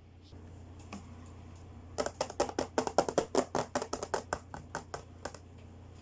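Small plastic toy accessories being handled, giving a quick run of light clicks and taps, roughly ten a second, that starts about two seconds in and thins out after about three seconds, over a faint steady hum.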